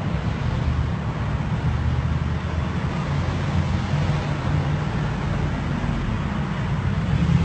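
Steady low motor-vehicle hum over a constant rush of road or traffic noise, getting a little louder near the end.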